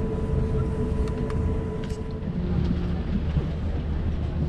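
Cabin noise inside an Airbus A380 taxiing on the ground: a steady low rumble with a few held tones, which shift lower about halfway through, and a few faint ticks.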